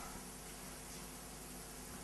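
Faint steady hiss with a low, even electrical hum: room tone picked up through the pulpit microphones while nobody speaks.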